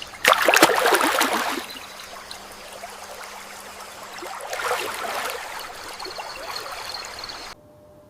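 Running water splashing and trickling, louder in two rushes, the first right at the start and the second about five seconds in, cutting off suddenly near the end.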